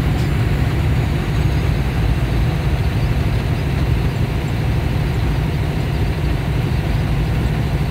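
Semi truck's diesel engine running at highway speed, heard from inside the cab as a loud, steady low drone.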